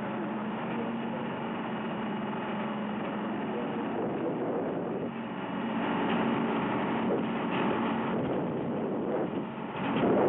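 Boat engine running steadily with a constant hum, over a dense wash of noise that swells louder a couple of times.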